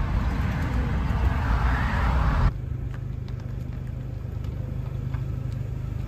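Engine and road noise inside a moving car, which cuts off abruptly about two and a half seconds in, giving way to a quieter, steady low hum.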